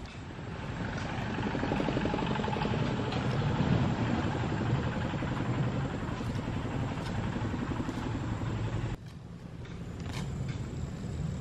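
An engine running with a steady, fast-pulsing rumble. It grows louder over the first two seconds, then drops off sharply about nine seconds in and continues more quietly.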